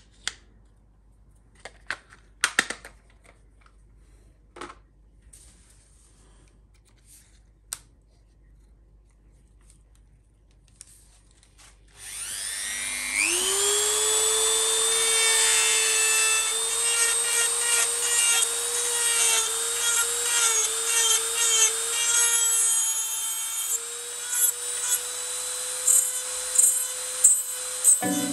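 A few small clicks, then about twelve seconds in a Dremel rotary tool switches on, its pitch rising as it spins up to a steady high whine. Near the end the sound swells and dips unevenly as the coarse carving bit grinds into the dry deadwood of a yew.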